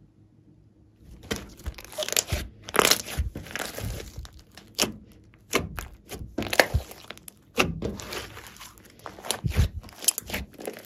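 Hands squeezing, stretching and folding a large mass of glossy slime mixed with clay and floam. From about a second in there is an irregular run of wet clicks, pops and squelches.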